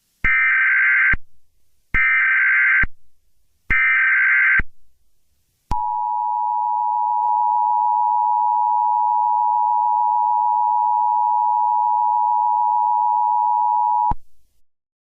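Emergency Alert System alert tones: three short buzzing SAME header data bursts, each about a second long, then the two-tone attention signal, a steady harsh dual tone. The dual tone is held for about eight seconds and cuts off abruptly.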